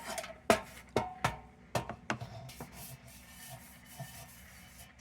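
Light clicks and taps of metal lantern parts being handled, about five in the first two seconds, then soft rubbing.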